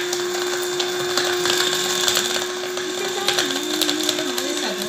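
Small electric blade grinder running steadily, its blade chopping dried orange peel into powder, with a scatter of quick clicks from the pieces hitting the bowl over a steady motor hum.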